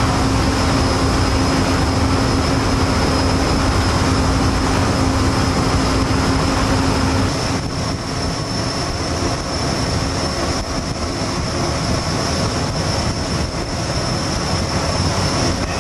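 Steady rumble and rush of a boat under way, an engine's low hum under wind and water noise. The hum drops out at a cut about halfway through, leaving the rushing noise.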